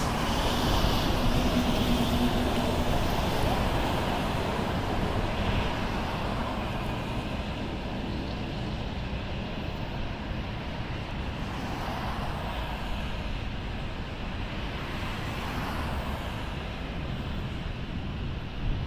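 Freeway traffic: cars passing on the near lanes over a steady hiss of tyres. The loudest pass comes at the start and fades over the first few seconds, and a few quieter passes swell and fade later.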